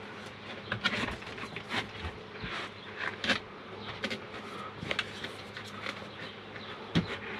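Scattered light knocks and rattles of an RV air conditioner's ceiling mounting bracket being handled and fitted into place, over a steady buzzing hum.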